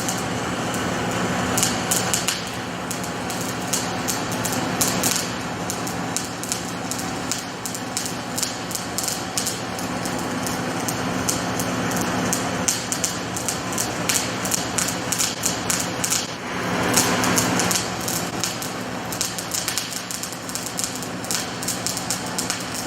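Rotoweld 3.0 automated pipe spool welder at work: the welding arc crackles in rapid irregular pops over a steady electrical hum, with a louder hissing swell about two-thirds of the way through.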